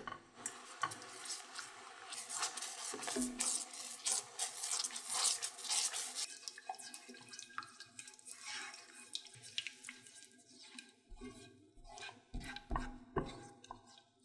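Thickened orange chicken sauce bubbling and popping in a pan while a silicone spatula stirs it. About six seconds in the bubbling drops away as the heat is turned off, leaving wet, sticky stirring sounds and a few soft knocks of the spatula against the pan near the end.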